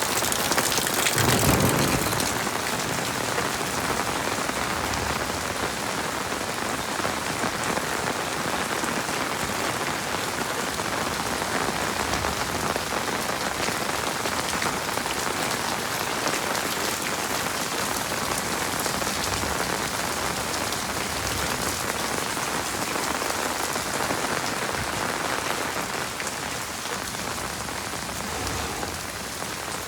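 Heavy rain falling steadily, a dense even hiss of drops, with a brief louder, deeper surge about a second in.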